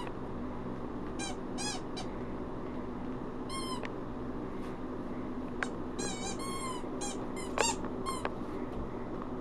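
A dog chewing a squeaky rubber chew toy, which squeaks about eight times at irregular intervals, each squeak a short high note that rises and falls.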